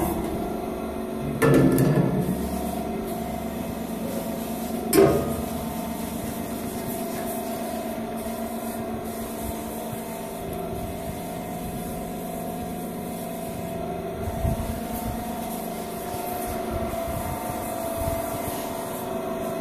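Niro-Tech WR-130 stainless steel meat grinder running with a steady hum. Its motor is a 9 kW three-phase unit. Two knocks stand out, one about a second and a half in and a sharper one about five seconds in.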